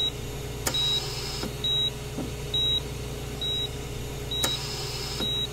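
Hospital heart monitor beeping a short high tone a little more than once a second over a steady low machine hum. Twice a click sets off a short hiss.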